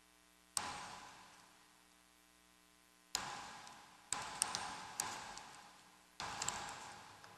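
Papers handled on a wooden lectern right by its microphone: about five sharp taps and rustles, each fading over about a second, with a couple falling close together in the second half.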